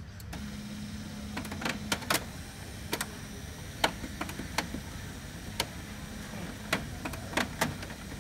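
HP LaserJet M203dn laser printer starting up after being switched on: a steady motor hum with many irregular sharp clicks and knocks. This is the abnormal noise that the repairer puts down to the old toner cartridge.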